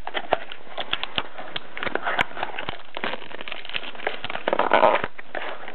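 Trading card pack packaging being handled and opened: irregular crackling and small clicks of cardboard and wrapper, busiest near the end.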